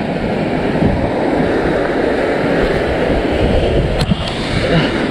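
Ocean surf breaking and churning against rocks close below, a steady wash of noise, with one sharp click about four seconds in.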